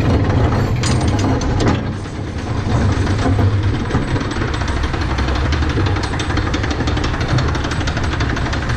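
Flying Turns bobsled coaster car being hauled up its lift hill: a steady low rumble with rapid, even clicking from the lift chain, after a couple of clunks in the first two seconds.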